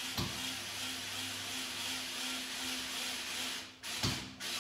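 Hammer drill running steadily as it bores into a brick wall for a wall plug, then stopping about three and a half seconds in, followed by a couple of short knocks. The drill is a bit too powerful for the job and cuts the hole too deep.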